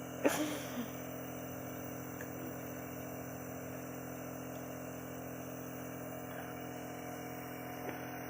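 Steady room hum made of several constant tones, with one short, sharp, breathy sound about a quarter second in.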